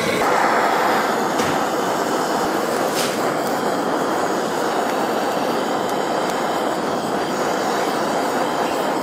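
Handheld butane blowtorch flame: a steady rushing hiss that cuts in abruptly and cuts off abruptly.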